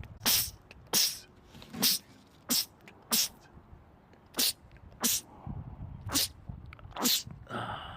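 A man in a rapid sneezing fit: about nine short, sharp sneezes in quick succession, most well under a second apart, with a brief pause a little before the middle.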